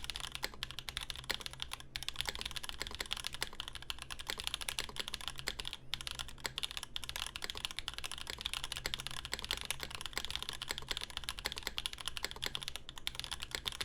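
Continuous fast typing on a custom mechanical keyboard, the CAKE prototype with a plexiglass case, O-ring mount, lubed and filmed Raed switches and GMK keycaps. A dense run of key clacks with a few short pauses.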